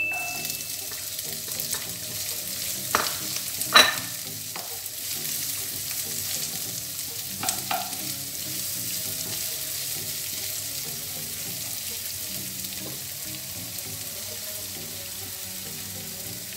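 Chopped onion and garlic sizzling gently in a non-stick frying pan over a low gas flame. A wooden spatula stirs them and clicks against the pan a few times, the loudest about three to four seconds in and again near eight seconds.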